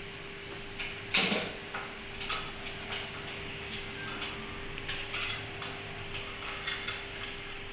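Irregular metal clicks and knocks from the clamps of a hydraulic butt fusion machine as an HDPE pipe is seated and the clamps are tightened by hand, with the loudest knock about a second in. A steady hum runs underneath.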